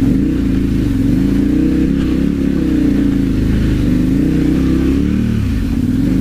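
Adventure motorcycle engine pulling under load up a slippery snow-covered dirt trail, its revs rising and falling as the rider works the throttle.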